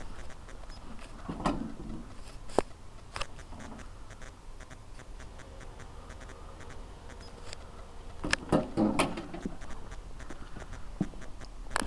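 Scattered short clicks and rustles, with a cluster of louder scuffs about eight and a half to nine seconds in; no engine running.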